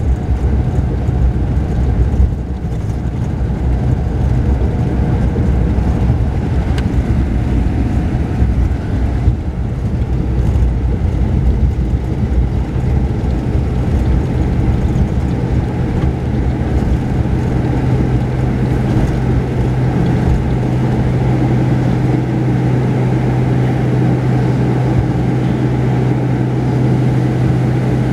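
Mercedes-Benz O-500RSD double-decker coach heard from inside its upper deck: engine and road rumble while driving, settling about halfway through into a steady low engine hum as the bus slows to a crawl.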